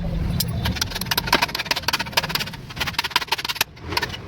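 A rapid, uneven series of sharp taps and clicks of hard objects striking.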